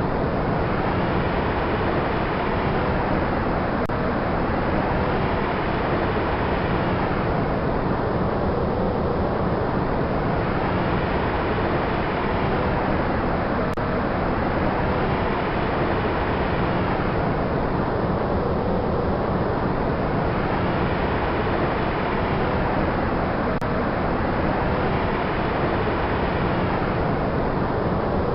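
Wind sound effect: a steady rushing 'wushhh' that swells and fades in slow, even waves about every ten seconds.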